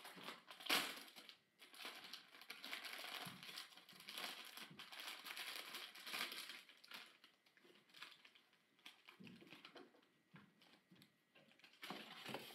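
Clear plastic bag around a plush toy crinkling and rustling as it is handled, loudest about a second in and sparser in the second half.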